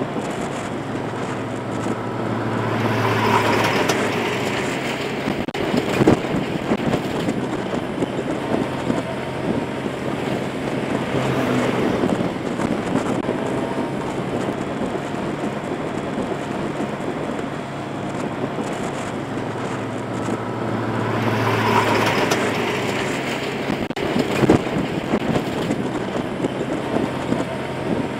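Motorbike riding along a highway: a steady engine hum under wind and road noise on the microphone. Twice the noise swells louder as trucks pass close by in the oncoming lane, and there are a couple of sharp knocks.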